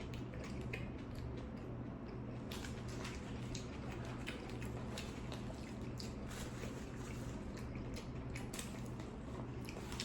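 Close-up chewing of a Subway tuna sandwich: irregular soft, wet mouth clicks and squishes over a steady low hum.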